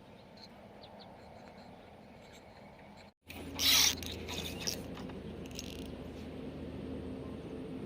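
Faint background for about three seconds, then after an abrupt cut a fishing reel being cranked: a steady mechanical whirr with bursts of scraping and clicking.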